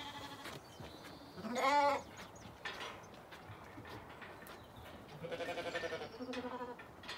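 Zwartbles sheep bleating: a faint bleat at the start, a loud one about a second and a half in, then two quavering bleats near the end.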